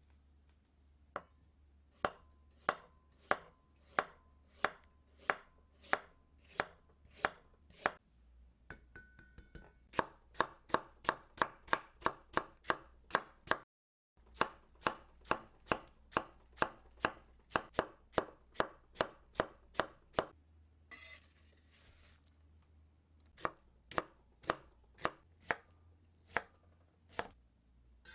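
Kitchen knife chopping peeled raw potatoes on a wooden cutting board: runs of sharp, evenly spaced knocks as the potato is cut into sticks and diced, about one and a half strokes a second at first and quicker in the middle.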